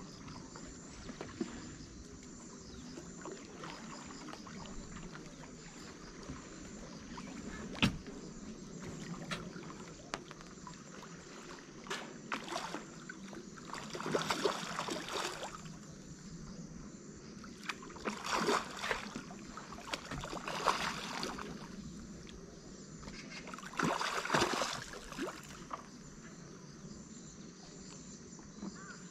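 Water splashing and sloshing in four short bursts over a steady low background hum, with one sharp click about a quarter of the way in.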